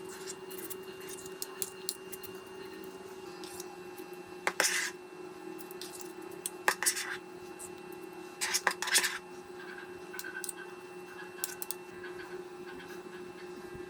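Kitchen utensils clinking and scraping against dishes in a few short bursts, loudest about a third of the way in and again near the middle, over a steady hum.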